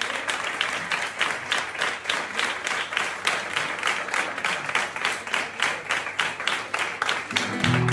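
Many hands clapping in a quick, even beat, about five claps a second. A flamenco guitar comes in near the end.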